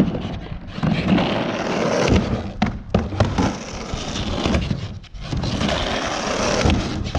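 Skateboard wheels rolling back and forth across a 3-foot mini ramp, the rolling noise swelling and dipping briefly with each pass, with a few knocks.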